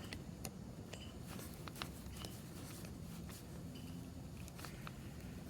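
Faint, scattered small clicks and handling noise from working on a replacement power plug and its wires.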